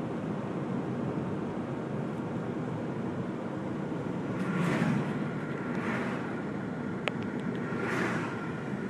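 Car driving along a road: steady tyre and road noise, swelling three times for a moment, with one sharp click a little after the second swell.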